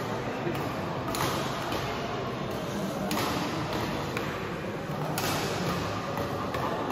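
Badminton rally: sharp racket strikes on the shuttlecock, three of them about two seconds apart, over the steady murmur of a crowd in a reverberant sports hall.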